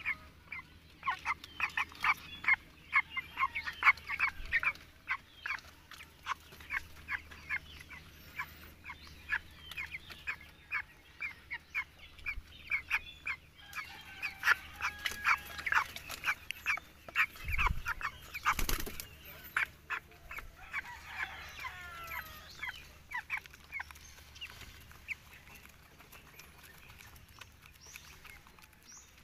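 Young white broiler chickens peeping: a rapid, continual run of short high cheeps from the flock that thins out near the end. A brief thump comes a little past the middle.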